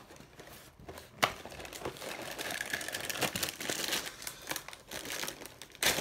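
A cardboard cereal box being torn open, its flaps ripping and the plastic inner bag crinkling, with a sharp snap about a second in and steady crinkling rustle through the rest.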